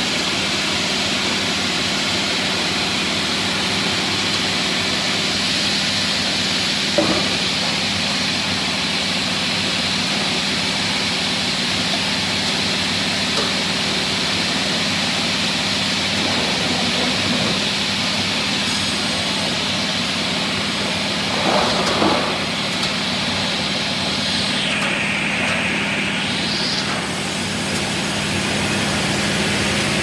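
Sawmill machinery running: a Kikukawa twin band saw and its roller conveyors make a loud, steady din. There is a sharp knock about 7 seconds in and a few brief clunks around 22 seconds.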